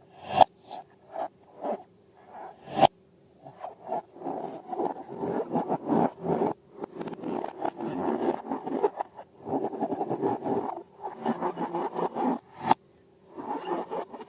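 Hands squishing and working sticky slime, making a dense crackling, sticky rubbing sound in bursts, with a few sharp clicks or snaps.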